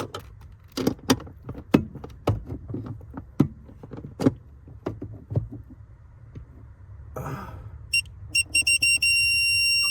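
A ratcheting torque wrench clicks through short, irregular strokes. Then its electronic beeper sounds a few short high beeps and goes into one steady high beep, the signal that the set torque of 8 foot-pounds has been reached.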